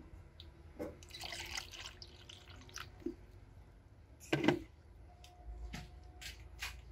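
Engine coolant bubbling and gurgling in a funnel on the radiator filler neck as trapped air escapes from the cooling system, with scattered drips and pops and one louder sharp knock about four seconds in.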